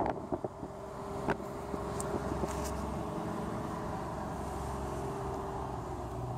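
Car interior noise while driving: the steady sound of the engine and tyres on the road heard from inside the cabin, a little louder from about a second and a half in, with a couple of short clicks near the start.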